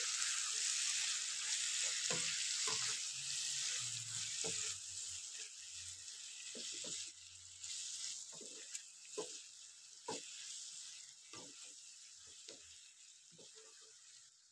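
Sliced onions and tomatoes sizzling in a frying pan while they are stirred with a spatula, which scrapes and knocks against the pan now and then. The sizzle gradually dies down.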